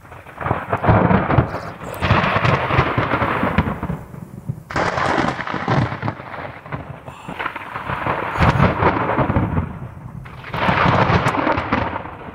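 Close thunder from nearby lightning strikes: about five loud rumbles one after another, each lasting a second or two, with short lulls between.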